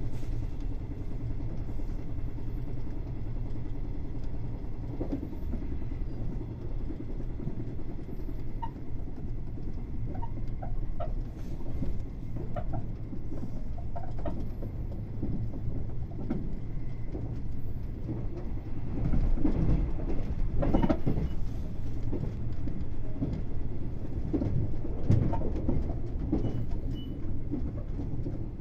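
A 381-series electric express train running, heard from inside the passenger cabin: a steady low rumble with the wheels clacking over rail joints and points. The heaviest runs of clacks come about two-thirds of the way through and again a little later.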